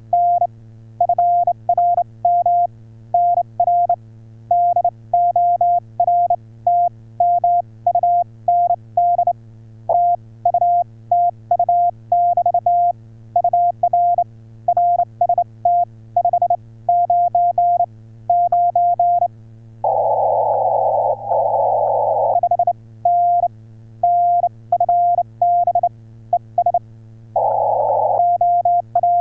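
Morse code (CW) from a ham radio transceiver: a single steady tone keyed on and off in quick dits and dahs, over a constant low hum. About 20 seconds in, and again near the end, a burst of hiss comes through for a second or two.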